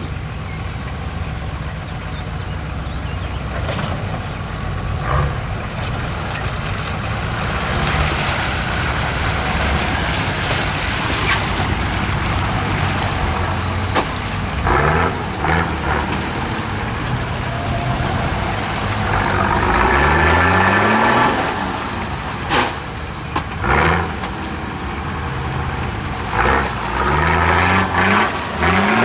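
Off-road 4x4 engine running steadily, then revving up twice with rising pitch, once about two-thirds of the way in and again near the end, with a few sharp knocks in between.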